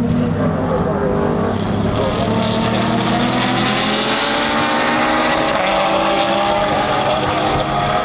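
Several GT race car engines running hard at once, their notes layered: lower pitches gliding down as cars go by while higher ones climb steadily as others accelerate.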